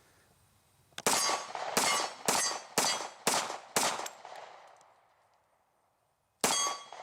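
Kahr CW45 .45 ACP pistol fired seven times: six shots about half a second apart, then a last shot after a pause of nearly three seconds, each with a metallic ringing tail.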